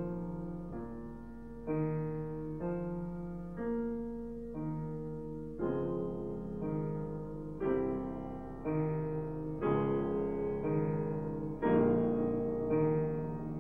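Background piano music: slow chords struck about once a second, each dying away before the next.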